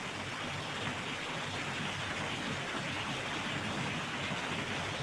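Steady, even hiss-like background noise with no distinct events.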